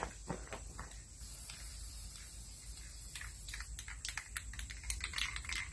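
Scattered clicks and rustles of someone moving about and handling things close by, growing thicker near the end, over a faint steady high tone.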